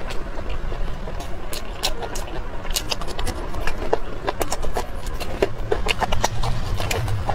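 Close-up eating sounds: chewing a steamed stuffed bun and biting fresh red chilies, heard as many short, sharp wet mouth clicks and crunches over a steady low rumble.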